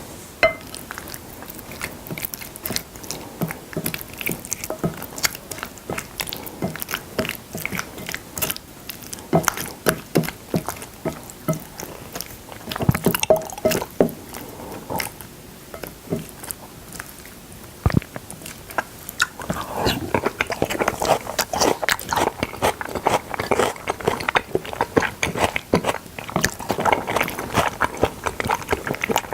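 Close-miked chewing and biting of salmon: wet mouth smacks and sharp clicks in an uneven rhythm, getting busier about two-thirds of the way through.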